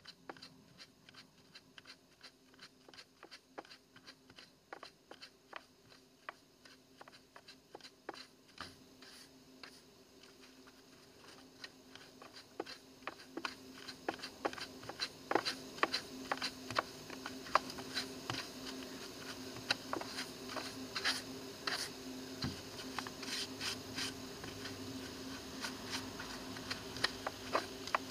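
Stiff plastic-bristled hand brush scrubbing crumbly rotten wood out of a door frame: a dry, irregular scratching and crackling that gets louder and busier about halfway through.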